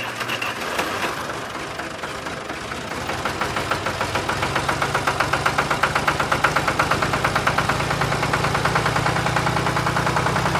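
Small motor of a DIY mini tractor running with a fast, regular chugging pulse of about five beats a second, growing somewhat louder partway through.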